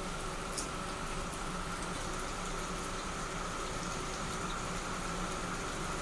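Heavy rain pouring steadily, an even, unbroken hiss.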